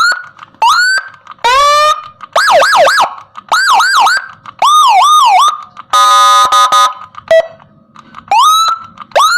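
Whelen G2 electronic siren module sounding through a TOA ZH610S horn speaker, stepping through its tones in short loud bursts as its sound setting is changed: rising whoops, quick up-and-down wails, and a steady buzzing horn tone about six seconds in, then rising whoops again.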